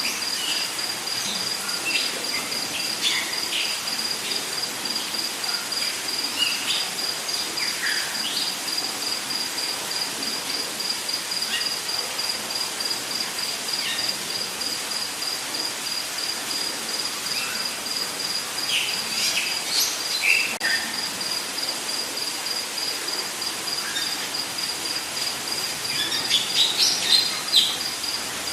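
Rainforest ambience: a steady, high, pulsing insect trill over a dense hiss of insects, with scattered short bird chirps and calls that grow busier near the end.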